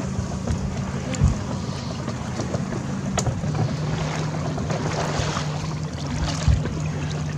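A small boat's motor running at a low idle: a steady low hum with a slight dip in pitch about three seconds in, over wind and water noise. Two dull thumps, one about a second in and one near the end.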